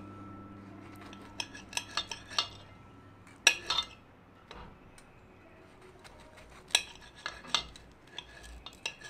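A knife slicing grilled kielbasa on a plate: a scattered series of sharp clicks and clinks as the blade cuts through and knocks the plate, loudest about three and a half seconds in and again near seven seconds.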